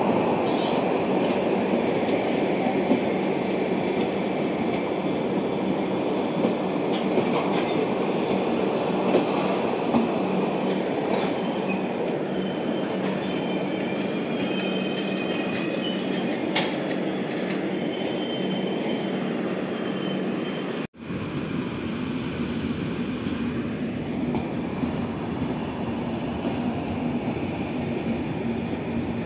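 Red-and-grey LHB passenger coaches of a departing Indian Railways express rolling past on the rails. Their wheels keep up a steady rumble with clickety-clack knocks over the rail joints and faint high squeals. The sound drops out sharply for a moment about two-thirds of the way through.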